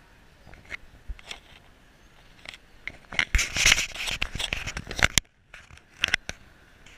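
Crackling, scraping handling noise against the camera or its housing: scattered clicks, a dense scratchy burst about three seconds in that stops abruptly, then a few more clicks.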